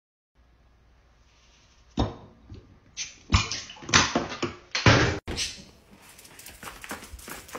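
Knocks and clunks of a glass beer bottle handled against a wall-mounted bottle opener, loudest between about three and five seconds in, followed by a run of quick, light clicks.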